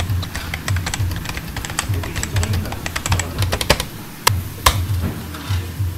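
Meat sizzling on a tabletop grill pan, fat crackling with quick irregular pops and ticks as the meat is pierced to let its fat run out, with two sharper clicks a little past the middle. Background music with a steady low beat underneath.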